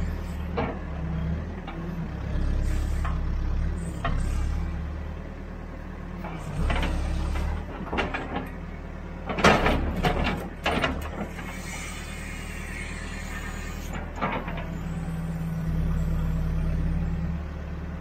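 Cat backhoe's diesel engine running under load while the hoe digs, its level swelling and easing several times with the hydraulic work. There are sharp clanks of the bucket and boom, bunched about halfway through, the loudest near the middle.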